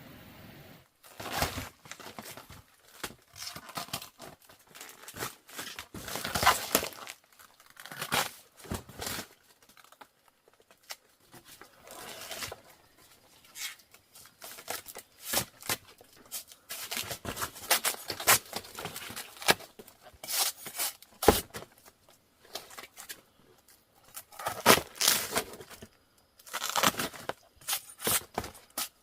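Irregular bursts of rustling and tearing, like material being torn and handled, coming and going with short pauses.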